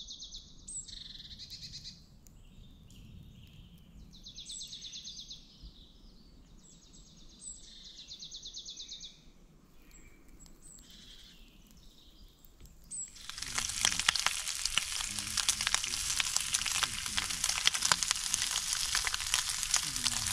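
A songbird singing short, high trilled phrases, about four of them. About two-thirds of the way through, pancake batter starts frying in a hot pan, with a loud, steady sizzle that takes over.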